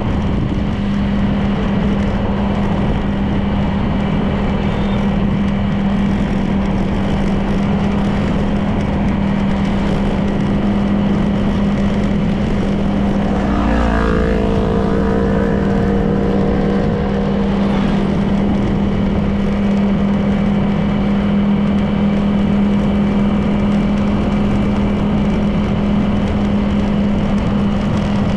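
Honda PCX 160 scooter's single-cylinder four-stroke engine running at a steady cruising drone, with road noise. About halfway through, another vehicle's engine passes, its pitch dropping as it goes by.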